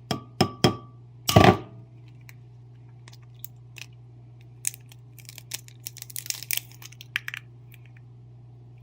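An egg tapped a few times against the rim of a bowl, the taps ringing briefly, then cracked open with a sharp, louder strike about a second and a half in. Light clicks and crackles of eggshell being pulled apart follow, over a steady low hum.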